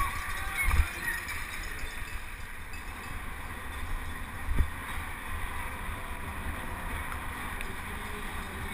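Steady wind rumble on the microphone of a helmet-mounted camera on a penny-farthing rider moving at speed, with a thump a little under a second in and another about halfway through.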